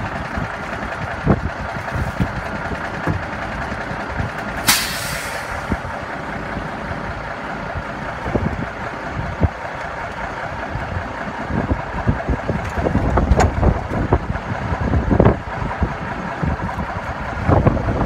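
Heavy trucks' diesel engines running steadily during a recovery, with a short burst of air-brake hiss about five seconds in. Wind buffets the microphone in the second half.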